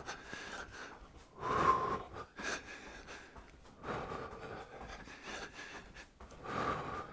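A man's breathing during jumping jacks, a few breaths about two seconds apart.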